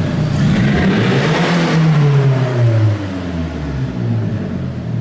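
A car engine revs up, rising for about two seconds, then drops back around three seconds in and runs lower and steadier.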